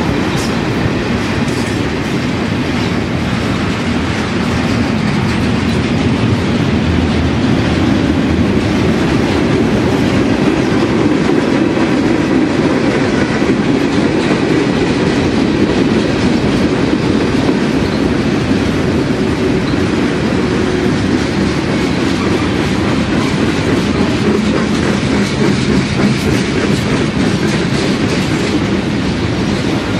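Freight cars of a long train rolling steadily past, the sound of steel wheels running on the rails; container well cars give way to boxcars and a tank car.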